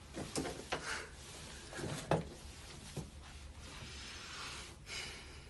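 A few light knocks and clicks, then a soft rubbing: handling and movement noise close to a phone's microphone.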